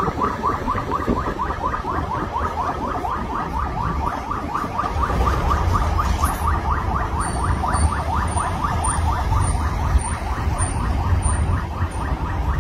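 Electronic vehicle siren giving a fast, even run of short chirps, about six a second, over the low rumble of a vehicle on the move.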